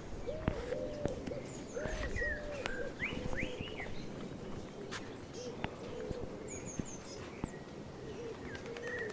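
A dove cooing over and over in short phrases of two or three rounded notes, with small birds chirping now and then and a few light clicks.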